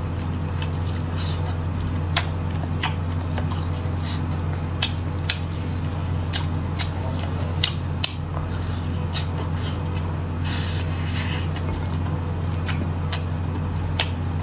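Close-up eating of hand-torn air-dried duck neck: scattered crisp clicks and crackles as the dry, stringy meat is pulled apart by hand and chewed. A steady low hum runs underneath.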